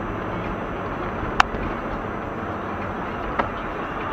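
Steady road and engine noise inside a moving car, picked up by a dashcam, with two sharp clicks about two seconds apart.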